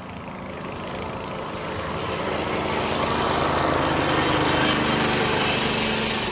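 Snowblower's small engine running steadily, growing louder through the first few seconds and then a little quieter near the end.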